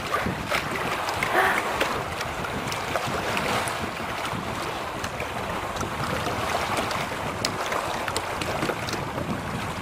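Steady wash of water around swimming elephants, with wind buffeting the microphone. A short, brief pitched call about a second and a half in.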